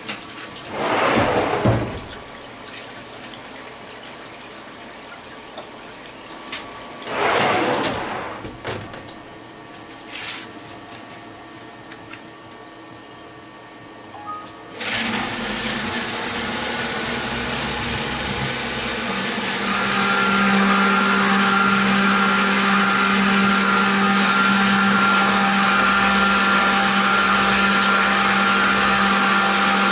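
CNC milling machine's flood coolant hissing and splashing over the workpiece and vise. It starts about halfway through, after a quieter stretch broken by two short whooshes, and a few seconds later the spindle spins up, adding a steady hum under the spray.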